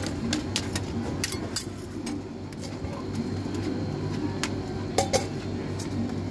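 Metal spatulas scraping and tapping on the steel cold plate of a rolled ice cream pan as chocolate ice cream is spread flat. Irregular sharp clicks over a steady low hum, with a cluster of louder taps about five seconds in.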